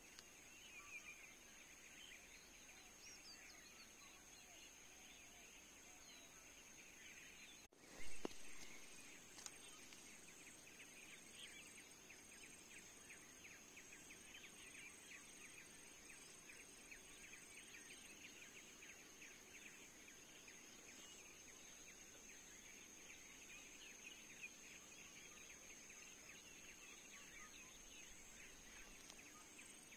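Faint forest ambience: a steady high insect drone with dense rapid chirping, perhaps with some birds. About eight seconds in there is a single brief, loud sudden sound.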